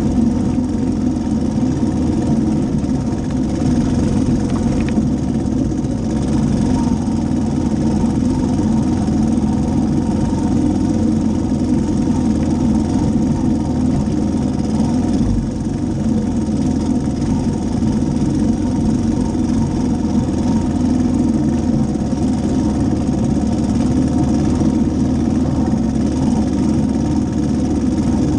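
All-terrain three-wheeler's engine running steadily at speed, its pitch holding level, with the knobby tyre crunching over gravel underneath.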